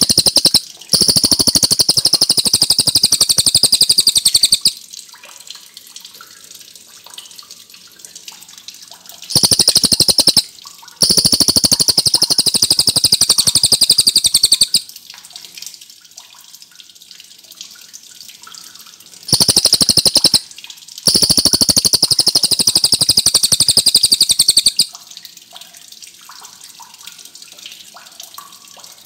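A cililin (rufous-tailed shama) sings long, loud, very rapid rolling trills, high in pitch. It gives a short phrase followed by a trill of about four seconds, three times, about ten seconds apart, with quiet pauses between.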